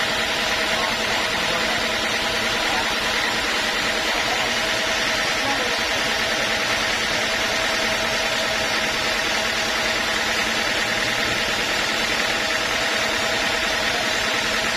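Sawmill machinery running steadily, a constant hum with several steady whining tones and no change in pitch or load.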